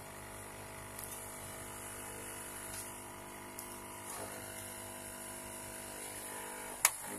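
Small clicks and taps of a Dell Inspiron N4050 laptop's keyboard ribbon cable and connector being handled and pushed into place, with one sharp click near the end, over a steady electrical hum.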